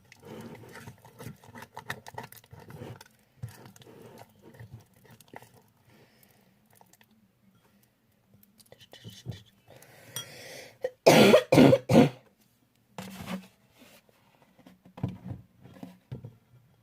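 Spoon stirring slime in a bowl, with soft scattered clicks and scrapes, and then a short fit of about four coughs about eleven seconds in, the loudest sound here.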